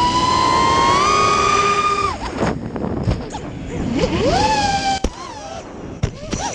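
FPV racing quadcopter's electric motors and propellers whining as heard from the onboard camera, the pitch climbing and falling with the throttle, with wind rush. Near the end the quad strikes the grass, with a few sharp knocks.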